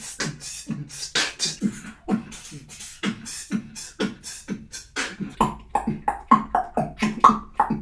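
Human beatboxing: a fast, steady beat of vocal kick drums and crisp hi-hat and snare sounds, about three to four strikes a second. From about five seconds in, pitched vocal tones join the beat.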